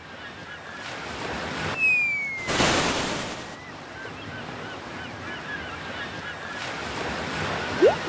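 Cartoon sound effects over a steady wash of waves. A short falling whistle is followed by a splash about two and a half seconds in, then faint repeated bird calls and a few quick rising blips near the end.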